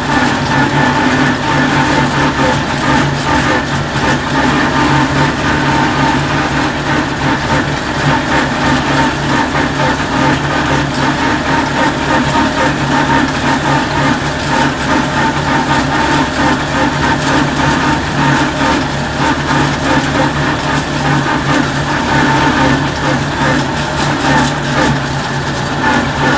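Tractor engine running steadily as the tractor drives along, heard from inside its cab.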